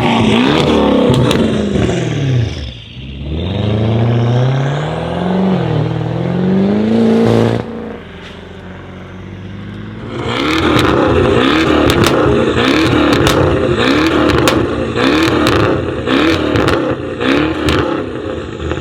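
BMW 650i V8 with a tuned exhaust, loud, its pitch rising and falling through several sweeps until it cuts off suddenly about seven and a half seconds in. Later a long series of quick rev blips follows, each rising and falling, with many sharp exhaust crackles and pops among them.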